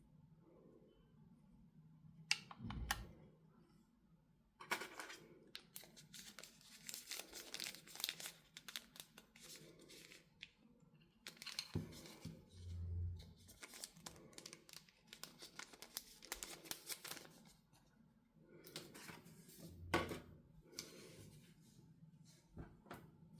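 Packaging being torn and crinkled by hand in repeated stretches of rustling, with a few soft knocks of items set down.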